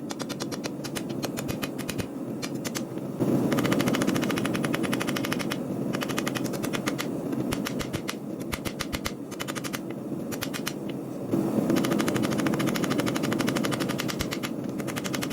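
Rapid, even hammering on steel while forging a knife blade, several blows a second, over a steady running hum that gets louder about three seconds in and again near eleven seconds.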